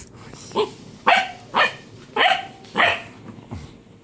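Basset hound barking: five short, loud barks about half a second apart, then a weaker one.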